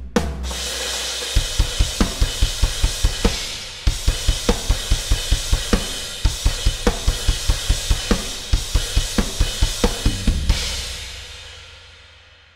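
Roland electronic drum kit played solo: a sustained cymbal wash over fast, even bass-drum strokes with snare accents about every half second. It ends with a final crash that rings out and fades away.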